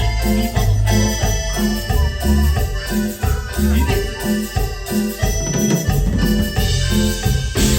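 A live band playing a Latin-style song during a sound check, with a steady beat and sustained chords over a pulsing bass.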